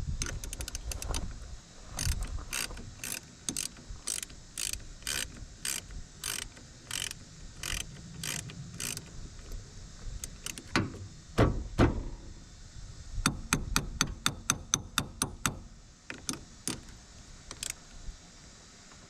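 Hand ratchet wrench clicking in strokes as a battery cable terminal nut is tightened, slower clicks in the first half and a quick run of clicks near the end, with a couple of heavier knocks midway.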